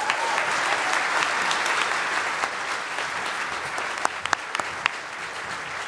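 Audience applauding, the clapping slowly thinning out, with a few single claps standing out near the end.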